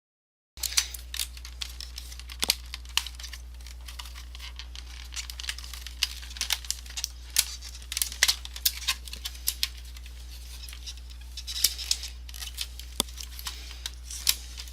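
Irregular small clicks, taps and plastic rattles of a computer keyboard's case and parts being handled during disassembly, over a steady low hum.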